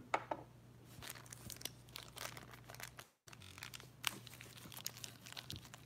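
Faint crinkling and tearing of blind-box pin packaging being opened by hand, a scatter of small crackles and clicks. The sound cuts out completely for a moment about three seconds in.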